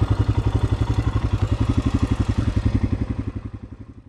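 Royal Enfield Himalayan's 411 cc single-cylinder engine running at low revs with a quick, even beat, fading out near the end.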